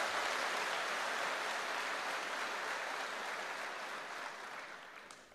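A large seated crowd applauding steadily in a big hall, the clapping dying away near the end.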